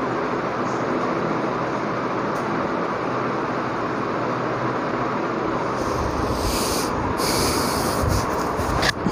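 Steady, loud rushing background noise with no speech; from about six seconds in, a higher hiss joins it in patches.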